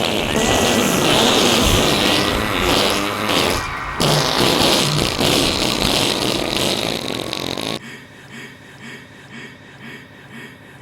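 A long, loud fart sound effect, played as a joke for 'the sound of failure', in two stretches with a short break about four seconds in. It drops to a much quieter, evenly repeating sound for the last three seconds.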